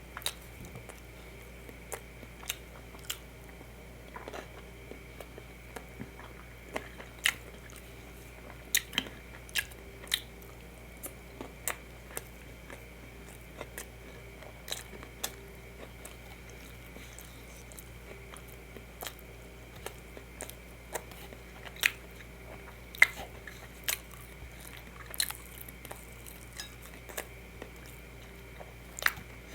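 Close-miked chewing and mouth sounds of a person eating, with sharp wet clicks and smacks at irregular intervals of about a second, over a faint steady hum.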